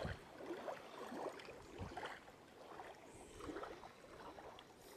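Faint water lapping with a few soft splashes and light ticks.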